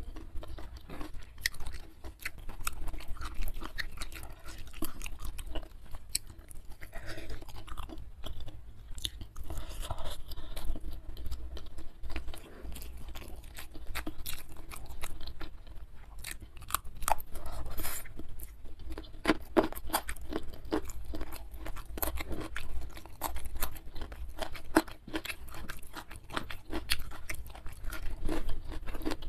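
Close-miked chewing and crunching as raw young jengkol beans and rice with sambal are eaten by hand, with many crisp clicks that grow denser about two-thirds of the way through. A low steady hum sits underneath.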